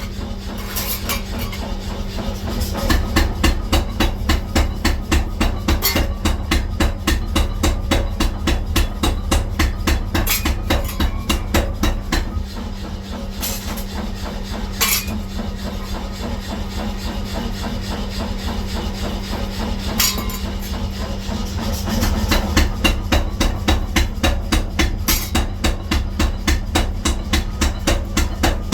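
Rapid, evenly spaced hammer blows on steel, about three a second, in a trowel-forging workshop, louder for stretches and softer in the middle, over a steady low machine hum.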